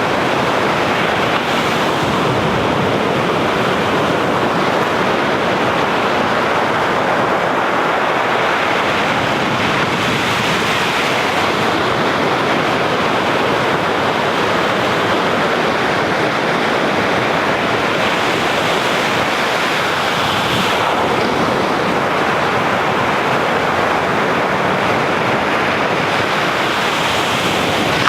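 Sea waves breaking and washing ashore in a steady, continuous surf, with some wind buffeting the microphone.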